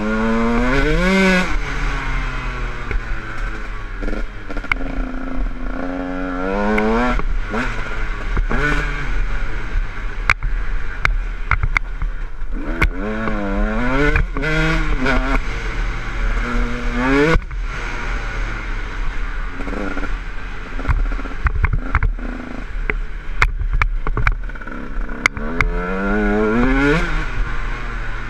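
Dirt bike engine being ridden hard on a dirt trail, its pitch rising again and again as the throttle is opened, then dropping back between pulls, with clattering knocks from the bike over rough ground.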